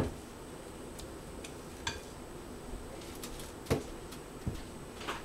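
Kitchen handling sounds from a glass mixing bowl and a foil-lined baking tray of seasoned potato pieces. It opens with one sharp clink, followed by a few faint clicks and knocks spread out over the next few seconds.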